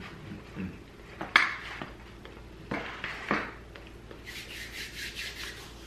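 Spoon and bowl knocked and set down on a wooden table, with one sharp clack about a second and a half in and two softer knocks a little later. Then hands rubbing together in quick strokes near the end.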